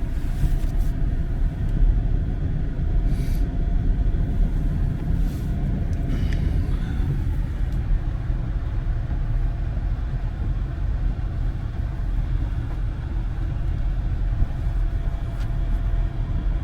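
Vehicle driving on a snowy road: a steady low rumble of engine and tyres, with a few faint clicks in the first half.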